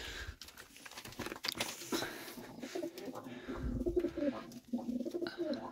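Domestic pigeons cooing inside a small coop, low wavering coos from about halfway through.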